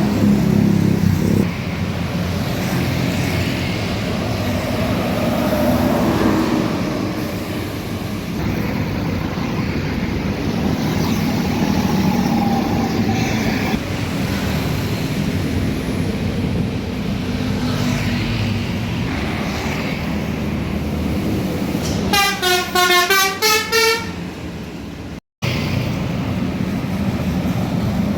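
Heavy road traffic and bus engines running past; about 22 seconds in, a bus's telolet multi-tone horn plays a rapid warbling run of notes for about two seconds. Near the end the sound cuts out for a moment.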